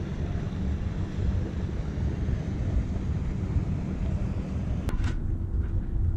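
Steady low rumble of a boat's engine running under way, with a hum and wind noise on the microphone. About five seconds in a sharp click breaks it, and a similar low rumble carries on with less hiss.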